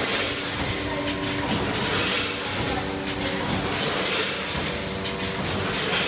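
Popcorn kernel packaging line running: dried corn kernels rattling through the vibratory feeder under a steady machine hiss. A louder burst of hiss comes about every two seconds, and short humming tones come and go.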